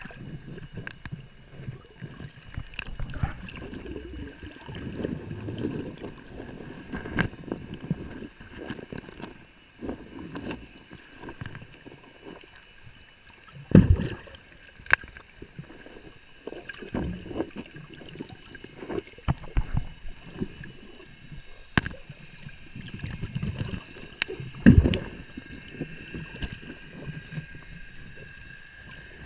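Water sloshing and gurgling in a creek, with a few sharp knocks; the loudest come about halfway through and near the end.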